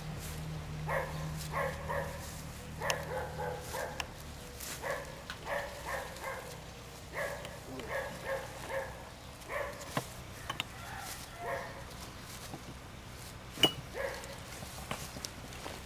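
A dog barking repeatedly in short clustered barks, about two a second at times. Near the end there is a single sharp knock.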